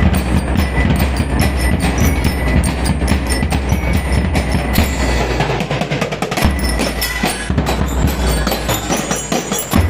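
School drum and lyre band playing: marching drums beating a dense rhythm while bell lyres ring out over them.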